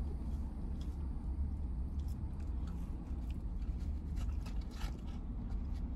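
Close chewing and eating sounds from people eating fries and a burger, with scattered faint clicks and rustles, over a steady low rumble.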